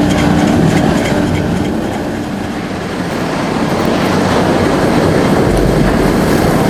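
Front-fed drum wood chipper running loud. A steady hum fades about half a second in into a dense, rough machine noise that dips slightly around two seconds in and then builds back up.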